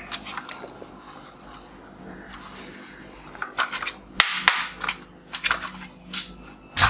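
Hard plastic toy guns clicking and clacking as they are handled: a quiet start, then a string of sharp clicks in the second half, the loudest near the end.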